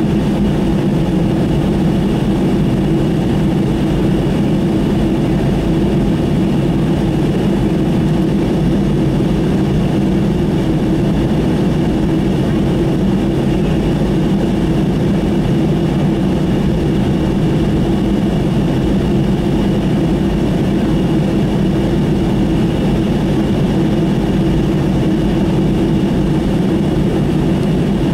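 Jet airliner taxiing, heard from inside the passenger cabin: a steady engine and cabin hum with a thin high tone above it, unchanging throughout.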